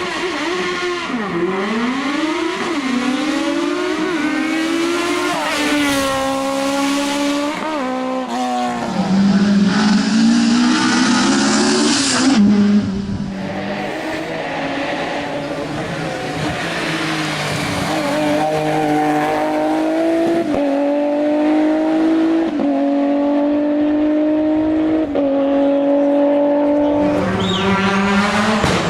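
Racing car engines at full throttle on a hill climb. The engine note rises and drops sharply again and again as the drivers shift gears and lift off for corners. A louder, harsher stretch near the middle cuts off suddenly.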